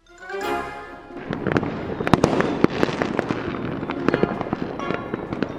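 Cartoon magic sound effect: a brief shimmering swell, then from about a second in a dense crackle of sparkly pops like a sparkler, with light music under it.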